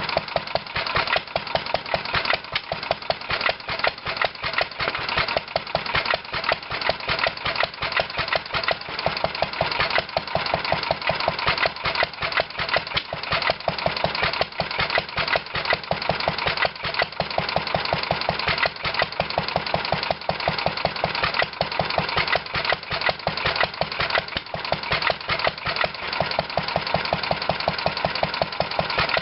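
1946 International Harvester 3-5 HP LB single-cylinder engine running steadily, its firing beat coming in a rapid, even rhythm.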